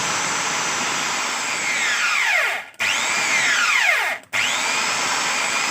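Homemade electric hand drill running with a steady whine, switched off and on twice: each time its pitch falls away as it stops, and it starts again straight after.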